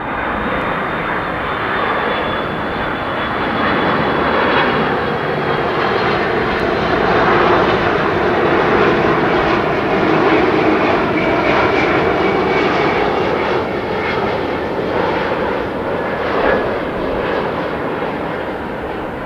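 Airbus A330-200 airliner's two Pratt & Whitney PW4000 turbofan engines on landing approach, flying past low with gear down: a steady jet roar with a high whine, loudest around halfway. A lower tone within the roar slides down in pitch as the airliner passes, and the sound eases off near the end.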